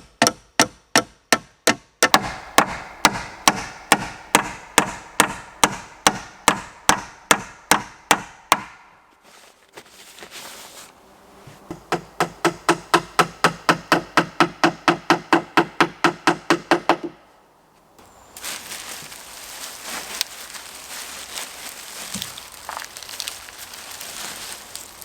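Hammer blows on wood, a steady run of about three ringing strikes a second, then a second run after a short pause. Rustling follows in the last several seconds.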